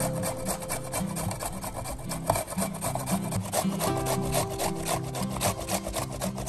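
A carrot being grated on a stainless-steel flat grater: quick, repeated rasping strokes of the carrot across the metal holes, several a second, running on without a break.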